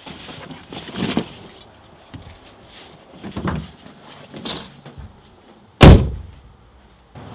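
Car door slammed shut about six seconds in, heard from inside the car cabin. Before it come a few soft bumps and shuffles as someone gets out of the driver's seat.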